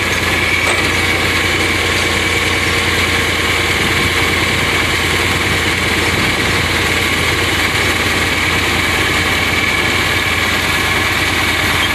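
Tractor engine running steadily at a constant speed, with a low hum and a steady high whine over it.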